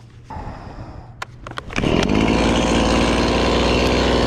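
A few light knocks, then about two seconds in a chainsaw comes in loudly and runs at a steady speed.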